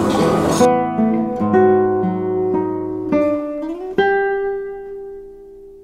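Background music: an acoustic guitar picking single notes, sliding up into a last note struck about four seconds in that rings out and fades away.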